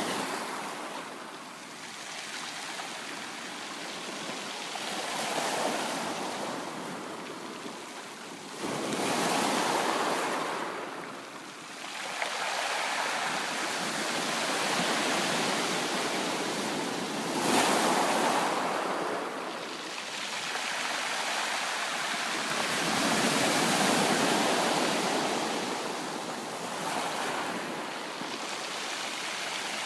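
Ocean surf breaking and washing in: a steady rush of waves that swells and ebbs every few seconds.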